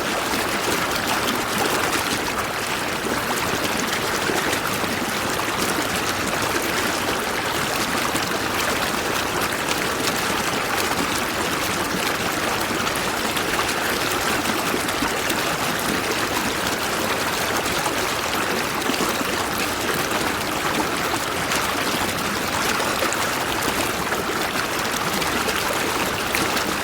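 Stream water flowing and trickling over stones, a steady rushing babble.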